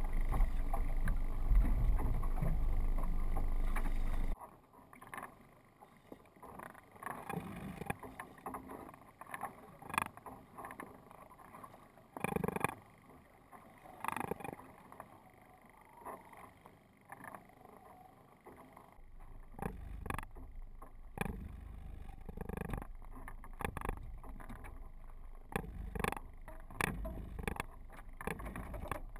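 Sounds aboard a small fishing boat: a steady low rumble that cuts off abruptly about four seconds in, then scattered knocks and clicks of gear against the hull, with a low rumble of water and wind building again in the second half.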